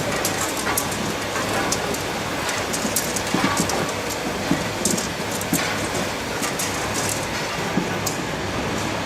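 Automatic poultry cage equipment running with a steady mechanical noise, rattling and clicking irregularly throughout.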